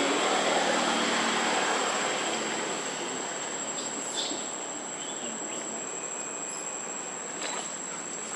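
Steady outdoor insect chorus: a continuous high-pitched insect whine over a dense hiss, with a few faint short chirps about halfway through.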